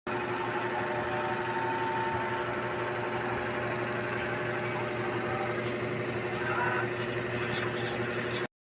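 A small machine running steadily with a rapid mechanical rhythm and a constant hum, starting and stopping abruptly.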